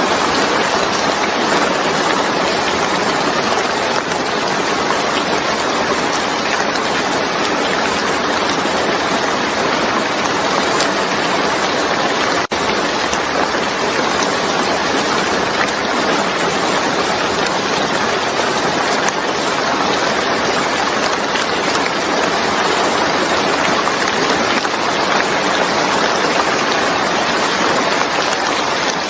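Steady, heavy rain: a dense, even hiss of rainfall, broken only by a split-second dip about twelve seconds in.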